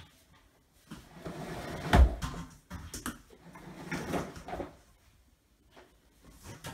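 Knocks, rustles and handling noises, with one loud low thump about two seconds in.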